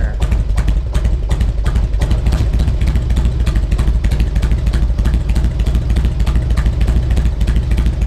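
1999 Harley-Davidson Road King's Twin Cam 88 V-twin idling steadily on its newly fitted S&S Super E carburetor, freshly started after an EFI-to-carburetor conversion and not yet jetted or tuned.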